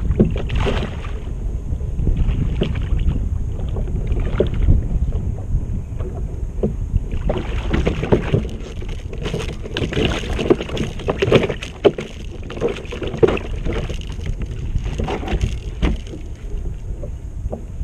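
Wind buffeting the microphone over water lapping at a kayak hull, with irregular splashing from about seven seconds in as a hooked fish thrashes at the surface beside the kayak and is brought aboard.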